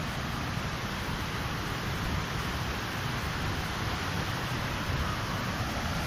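Steady rushing of a waterfall cascading over low rock ledges: an even roar of falling water that does not change.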